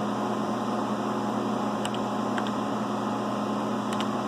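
Steady electrical hum of a phase converter powering a CNC milling machine from single-phase supply, with a few faint clicks of keys pressed on the machine's control.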